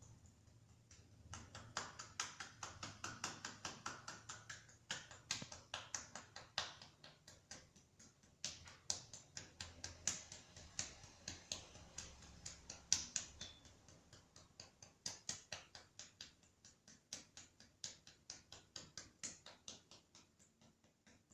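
A rapid run of sharp clicking taps, about three to four a second, starting about a second in and thinning out near the end.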